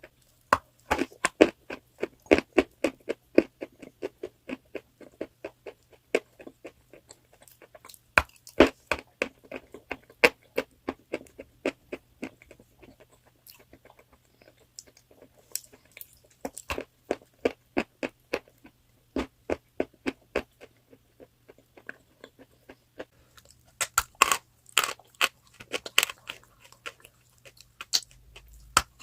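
Someone biting and chewing crunchy chalk: sharp crunches come several a second, thin out for stretches, and grow loudest near the end.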